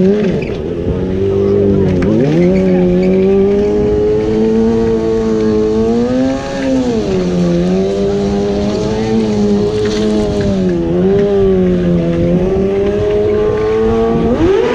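Stunt motorcycle engine held at high revs, its pitch wavering up and down, with a sharp dip about two seconds in and a quick drop and rise near the end.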